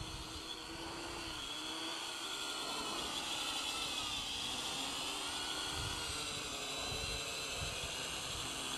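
Syma X8HG quadcopter's motors and propellers whirring in flight, several pitches wavering up and down as the drone is pushed about by the wind.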